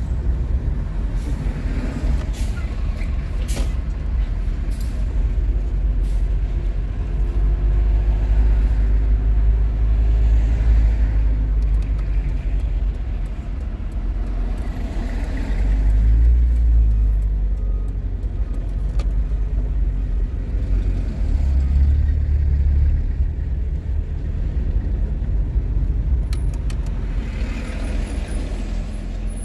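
Motor vehicle traffic on a street: a steady low rumble that swells a few times as vehicles go by.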